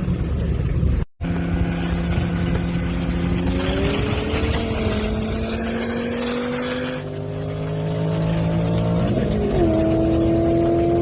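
Car engine pulling under acceleration, its note climbing slowly. About nine seconds in the pitch drops as it shifts up a gear, then starts climbing again.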